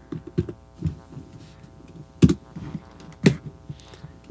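A few short clicks from a computer keyboard and mouse as a node is added in the software, the two loudest a little past the middle, over a steady hum.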